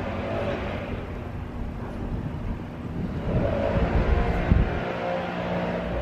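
Petrol leaf blower running, a continuous engine drone that swells in pitch and level from about three seconds in.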